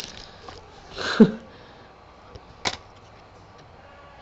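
Trading card pack handling: a short rustle of the wrapper about a second in, and a single light click a little past halfway.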